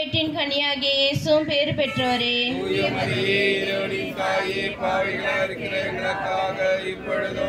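Tamil rosary prayer chanted in a sing-song tone: a woman's voice leads alone, then about two and a half seconds in a congregation of many voices joins in chanting together.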